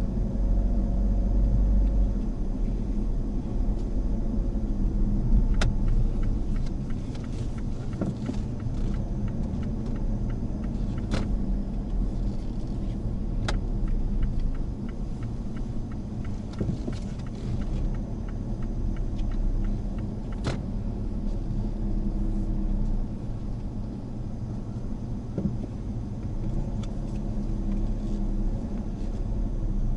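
Mazda Axela Sport driving along: steady low engine and road rumble, with a few sharp clicks scattered through it.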